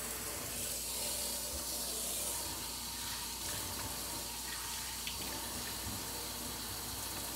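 Kitchen faucet running steadily into a stainless steel sink, the water splashing as hands are rinsed under the stream.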